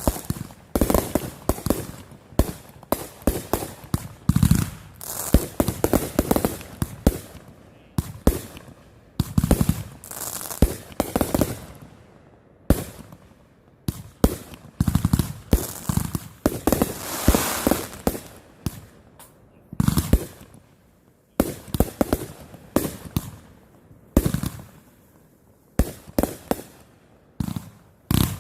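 Fireworks going off: clusters of sharp bangs and pops, some with crackling, separated by short lulls.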